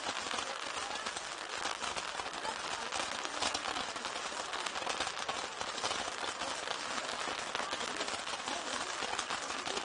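Set-piece ground fireworks crackling continuously, a dense steady stream of tiny pops with a few sharper ones mixed in.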